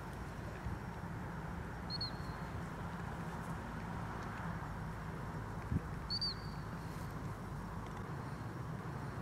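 Steady low rumble of open-field outdoor ambience, with two short high chirps about four seconds apart and a soft knock shortly before the second.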